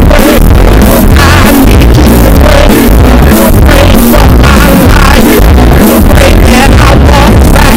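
Loud music with a heavily bass-boosted low end, held near full volume throughout.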